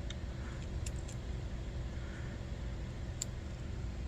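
A few faint, sharp metallic clicks from a pipe flaring tool being handled, over a steady low background hum.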